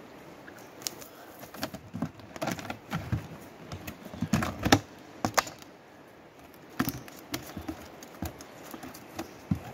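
Irregular slaps, taps and clicks from freshly caught fish flapping on hard, gravelly dirt as they are worked out of a cast net, with the net's chain lead weights clinking. The knocks come thickest in the middle.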